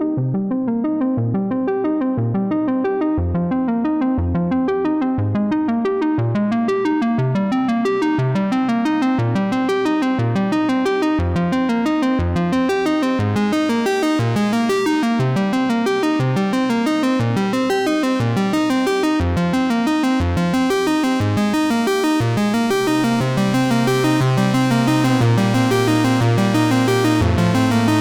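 Background music: electronic synthesizer and keyboard track with a steady rhythm, a sustained bass line coming in near the end.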